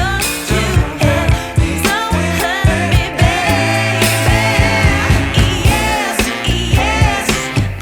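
Pop song with a male singing voice over a steady drum beat and bass.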